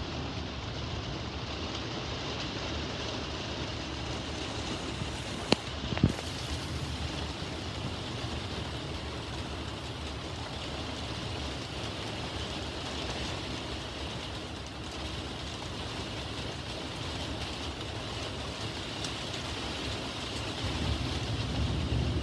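Heavy thunderstorm rain and wind, a steady even roar, with two sharp clicks about five and a half and six seconds in. A low rumble of thunder builds near the end.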